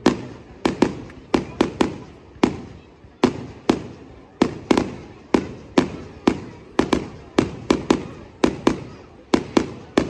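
Fireworks display: a rapid, irregular run of sharp bangs, about two to three a second, each trailing off briefly.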